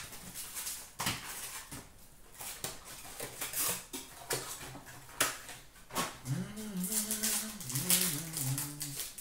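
Trading-card pack wrapper crinkling and cards being handled and flicked through, with short sharp rustles and clicks. About six seconds in, a low voice hums a few wavering notes for about three seconds.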